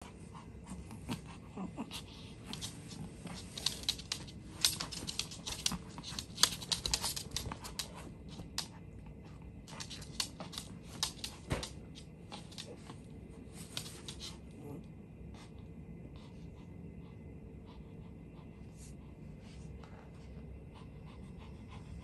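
Pomeranian puppy's claws clicking and scratching on a wooden floor as it scrabbles and paws at a cushion: rapid irregular clicks, thick in the first half and fewer after about fifteen seconds.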